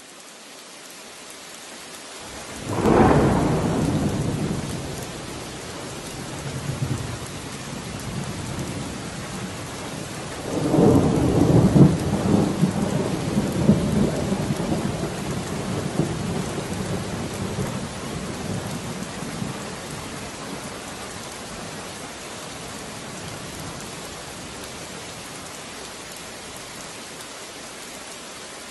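Steady rain hissing, with two rolls of thunder. The first comes about three seconds in; the second, longer and louder, starts about ten seconds in and rumbles on for several seconds.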